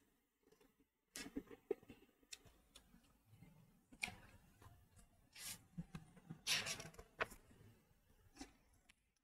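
Faint, scattered rustles, clicks and scrapes in a quiet room, with a louder scrape or rustle about six and a half seconds in.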